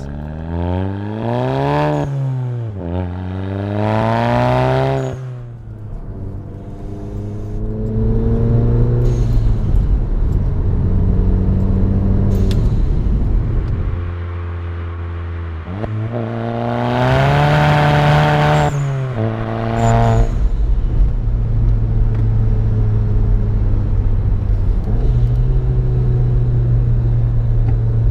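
VW Golf GTI Mk7's turbocharged four-cylinder with an APR downpipe and its Soundaktor unplugged, accelerating through the gears. The engine note climbs, drops at an upshift and climbs again, settles to steady cruising, then about halfway through rises in another hard pull before settling again.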